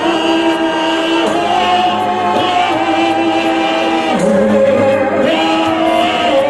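A choir singing gospel music, many voices holding long notes and sliding between them.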